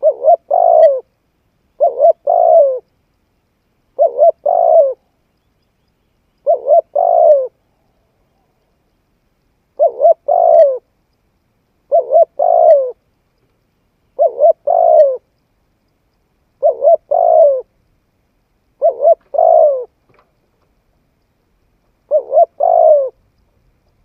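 Spotted dove cooing: ten repeated coo phrases about two seconds apart. Each phrase is two short notes and then a longer one, with silence between phrases.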